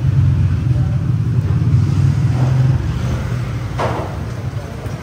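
Loud, steady low rumble that eases a little about three seconds in, with a brief clatter about four seconds in.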